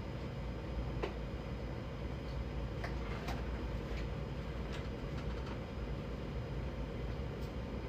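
Bambu Lab A1 Mini 3D printer running mid-print: a steady low hum of fans and stepper motors, with a few light ticks scattered through.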